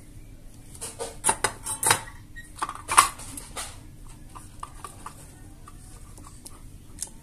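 Clicks and clatters of a small power-supply circuit board and a plastic adapter case being handled and fitted together on a workbench. A run of sharp knocks comes about a second in, the loudest is about three seconds in, and lighter ticks follow.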